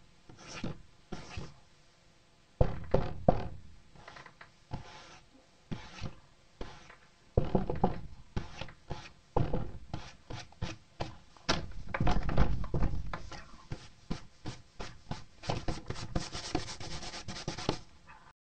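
Handling noise: irregular rubbing and scraping right against the recording device's microphone, with scattered knocks, loudest in a few clusters, stopping abruptly near the end.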